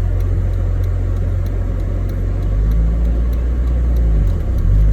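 Manual-transmission car engine pulling away in first gear, its low rumble rising as the revs build, before the shift into second.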